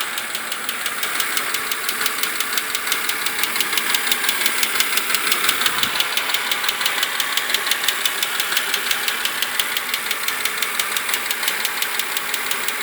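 BMW Z4 2.5i (E86) straight-six engine running with a fast, even ticking from the top of the engine, in time with engine speed. The tick has not been cured by a change of oil from 0W-30 to 10W-40.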